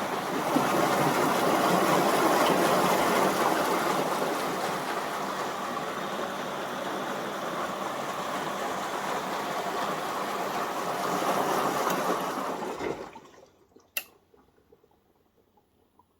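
Water rushing into a front-loading washing machine as it fills for its final rinse. The rush stops abruptly about thirteen seconds in, followed by a single sharp click.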